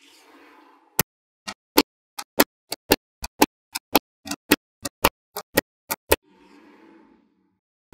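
Magnetic balls clicking sharply as they snap onto each other one at a time, about three clicks a second for some five seconds. A soft rustle comes just before the clicks and again just after them.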